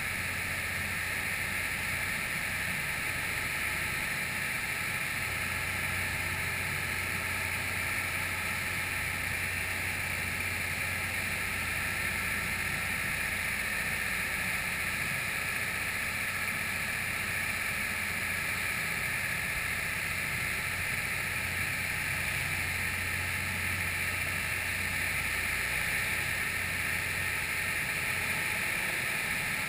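Steady rush of water and wind along the side of a moving ship, with a low steady hum underneath throughout.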